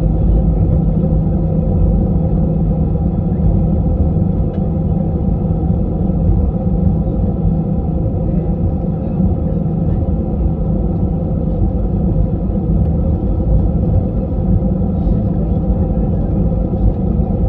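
Cabin noise inside a jet airliner: a steady low rumble with a constant hum underneath.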